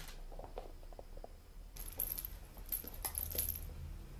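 Light metallic jingling and clicking of kittens' toys being batted around, in a cluster from just under two seconds in to about three and a half seconds in.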